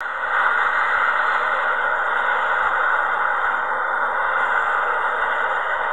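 Steady rushing roar of a four-engine jet airliner's engines as it rolls along the runway.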